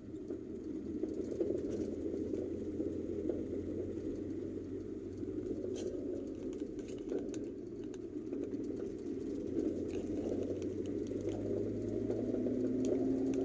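Car driving on a paved road, heard from inside the cabin: a steady engine and tyre rumble with scattered small rattles and clicks. A steadier hum comes in near the end.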